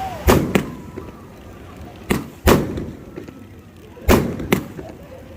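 Multi-shot firework cake firing: sharp bangs in pairs, about one pair every two seconds, six bangs in all, each followed by a rumbling tail.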